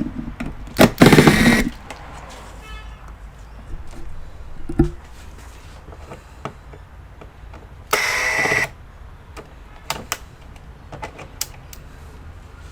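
Small electric screwdriver whirring in two short, even bursts, about a second in and again about eight seconds in, with scattered light clicks and taps of tools and parts on the computer's plastic case.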